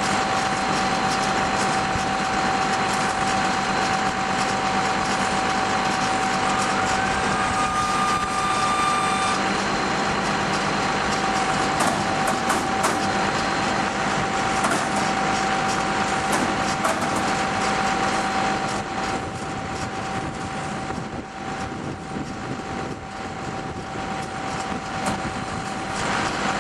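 Massey Ferguson 450 round baler running off a tractor's 540 PTO, with the tractor engine: a steady mechanical clatter with a constant high whine and scattered clicks, a little quieter in the last third.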